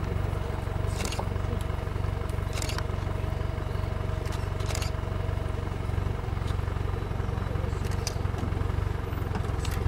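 Vehicle engine idling with a steady low hum, with a few brief rustles over it.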